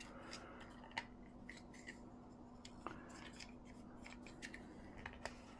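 Faint, scattered small clicks and light rubbing from the plastic parts of a toy RC car being handled and pried apart, over a faint steady hum.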